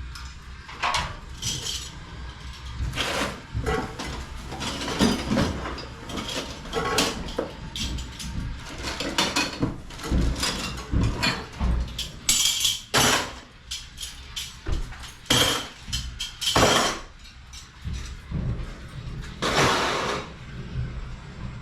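Irregular metallic clinks and knocks, some sharp and briefly ringing, at uneven intervals throughout.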